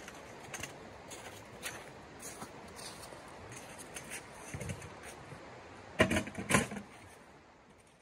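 Steady rush of a shallow river running over stones, with light knocks and rustles of camping gear being handled in a tent, and two loud sharp knocks about six seconds in. The sound fades away near the end.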